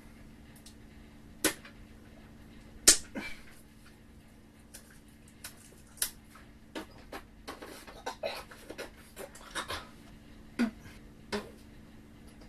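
A metal jigsaw puzzle tin being opened and handled: a couple of sharp knocks, the loudest about three seconds in, then a run of smaller clicks and rustling as the packaging and pieces inside are handled. A faint steady low hum sits underneath.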